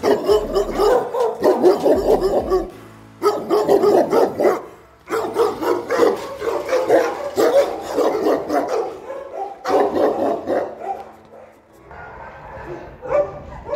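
Several shelter dogs in their kennel runs barking at once, a dense, overlapping chorus of barks that thins out and grows quieter in the last couple of seconds.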